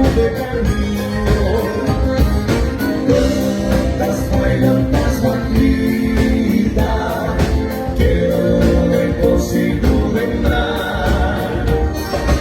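Live gaúcho dance band playing fandango music, with sustained melody lines over a steady beat.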